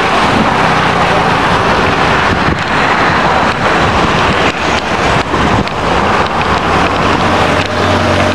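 Wind rushing over the microphone of a camera carried on a moving bicycle, mixed with the noise of road traffic passing close by. Near the end a low engine hum from a passing motor vehicle rises.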